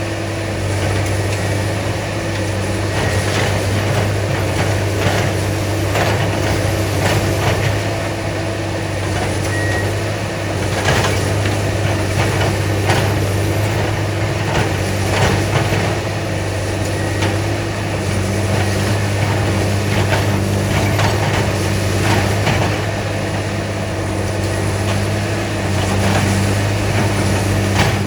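Railroad track maintenance machines running with a steady diesel engine drone, and irregular sharp metallic knocks and clanks from the work on the track.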